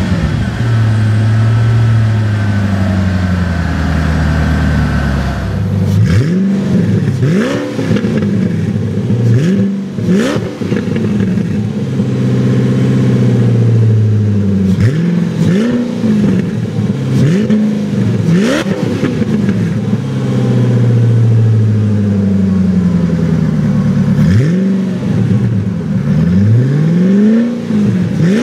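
Koenigsegg CCXR's twin-supercharged V8 running. For the first few seconds it holds a slowly falling note, then it is blipped repeatedly from idle, each rev a quick rise and fall in pitch, with about eight blips spread through the rest of the stretch.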